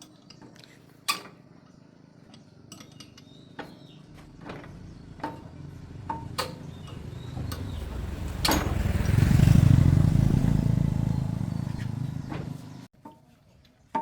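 A motor vehicle engine rumbles, swelling in loudness to a peak about two-thirds of the way through, then fading and cutting off abruptly near the end. Scattered sharp clicks and knocks are heard throughout.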